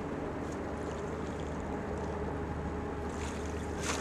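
Boat's outboard motor idling with a steady low hum. Near the end comes a brief splash as the landing net goes into the water.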